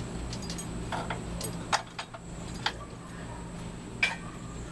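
A few sharp metallic clinks, about four over the few seconds, from metal parts and tools knocking together during an engine teardown, over a steady low hum.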